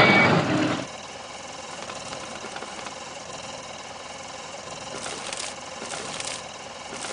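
Toy fire truck's small electric motor whirring as its ladder is raised. A louder stretch with a short beep cuts off just under a second in, leaving a steady, quieter whir with a few short hissy bursts near the end.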